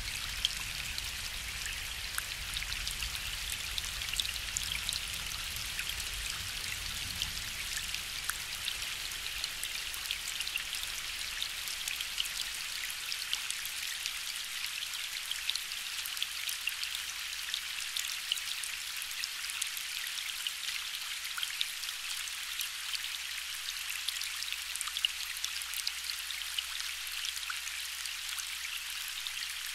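Gentle steady rain falling on a lake, a dense patter of small drops. A low, distant thunder rumble sits under it for the first several seconds and fades out about a third of the way in.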